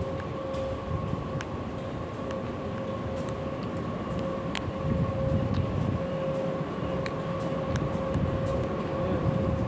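A steady mechanical hum with a faint whine over a low rumble, the rumble growing a little louder about halfway through, with scattered light clicks.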